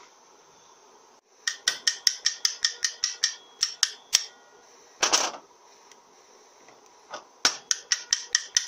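Quick, light metallic taps with a screwdriver on an aluminium transmission valve body, about five a second, in two runs with a pause between them, with one brief louder noise in the pause: a stuck valve-bore plug being tapped loose to free the regulator valve.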